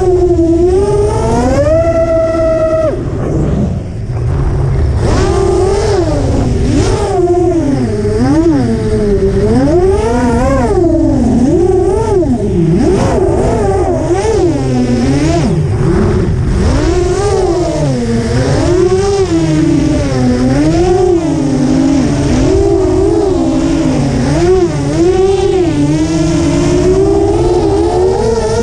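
ImpulseRC Alien race quadcopter's brushless motors and propellers whining, heard from the onboard camera, the pitch swooping up and down every second or so with the throttle and briefly held higher about two seconds in, over a steady low rush of wind.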